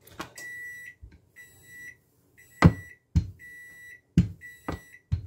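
A kitchen appliance's electronic beeper sounding a steady high beep about once a second, six times. Between the beeps come several sharp knocks of a rolling pin on the counter as dough is rolled out.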